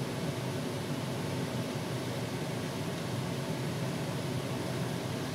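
Steady hiss with a low hum from a gas stove as vegetables cook in a wok over the lit burner.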